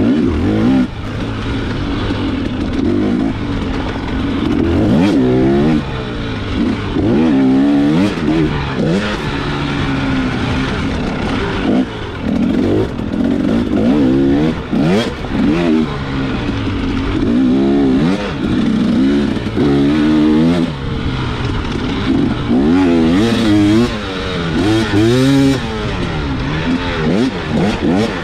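Enduro dirt bike engine revving up and down over and over as the throttle is worked, its pitch climbing and dropping every second or two, with short knocks and rattles throughout.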